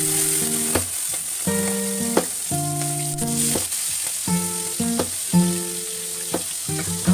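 Food sizzling as it fries in hot oil in a pan, a steady hiss with a few short clicks, under background guitar music.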